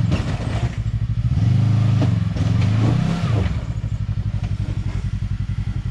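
Side-by-side UTV engine revving up twice in the first half, with a few clattering knocks, then dropping back to an even, pulsing idle.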